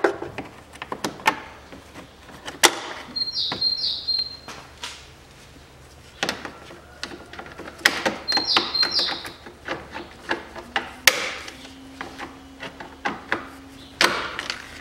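Scattered clicks and knocks of plastic and metal as the lower section of a Toyota Mark II's radiator fan shroud is worked free of its latches and metal brackets. A bird chirps in short pairs twice in the background.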